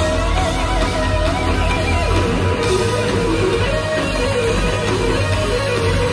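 Live heavy metal band playing loud over the arena PA, with a melodic electric guitar line bending and wavering over the bass and drums.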